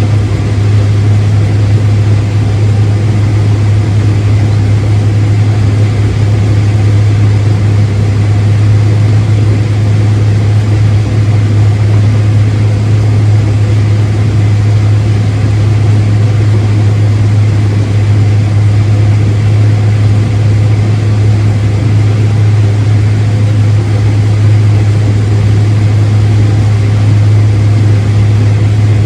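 Farm tractor engine running at a steady speed: a constant low drone with even mechanical noise over it, no change in pitch or load.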